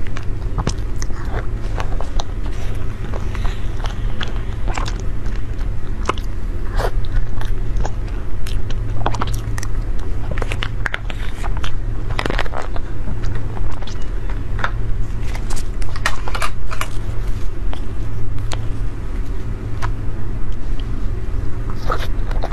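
Close-up eating sounds from a layered matcha Oreo dessert in a plastic cup: irregular sharp clicks of a spoon scraping and tapping the cup, with biting, crunching and chewing, over a steady low hum.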